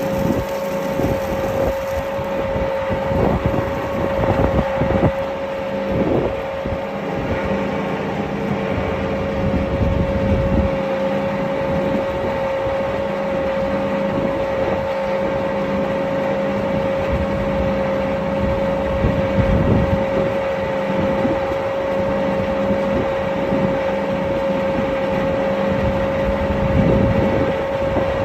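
Feed mixer truck running with its twin mixing screws turning through a load of feed: a steady mechanical drone with a constant whine and an uneven low rumble.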